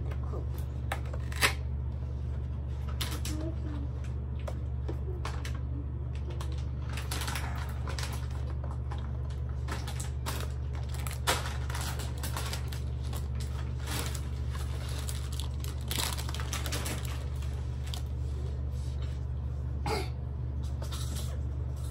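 Intermittent light clicks and taps of plastic toy kitchenware being handled, with a sharper knock about a second and a half in and another about eleven seconds in, over a steady low hum.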